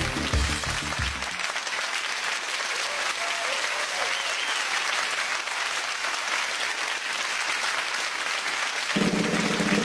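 Audience applauding. Music stops about a second in, and a new beat starts near the end.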